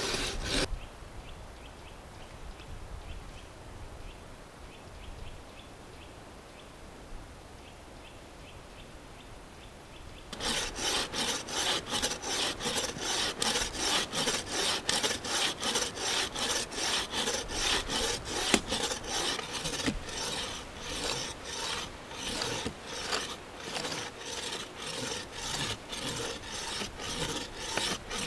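Wooden frame saw cutting through a fallen tree trunk, faint at first, then from about ten seconds in a loud steady back-and-forth rasp of about two strokes a second.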